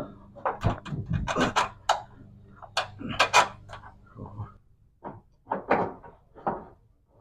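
Irregular metallic clunks, knocks and scrapes as a new fuel tank is pushed and tilted up into place under the car, with a low steady hum underneath that stops about halfway through.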